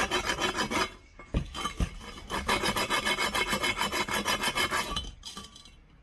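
Rust being scrubbed off the metal edges of a bus air-suspension bellows, rapid back-and-forth rasping strokes; cleaning the rust away is needed so the bellows does not leak at its folds. The scrubbing breaks off about a second in, with a couple of light knocks, resumes, and stops about five seconds in.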